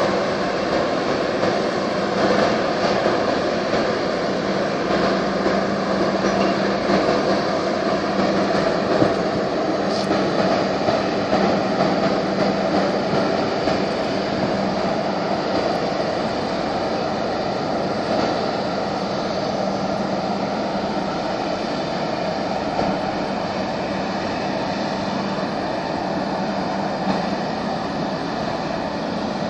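A boat's engine running with a steady drone and a constant low hum, under a continuous rush of water and wind.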